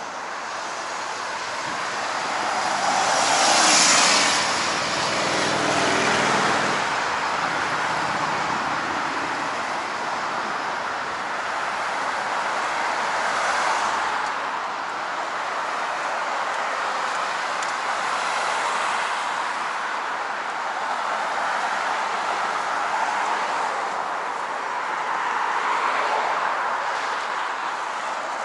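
Road traffic noise with vehicles passing, loudest as one goes by about four seconds in, then a steady wash of traffic with smaller swells.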